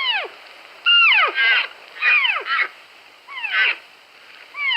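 Deer calling: a series of high squealing calls, each falling steeply in pitch, about one a second, several followed by a short quavering bleat.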